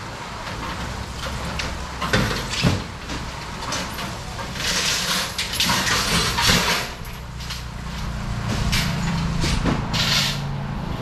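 A vehicle engine idling steadily, with a few knocks about two seconds in and bursts of hiss about halfway through and again near the end.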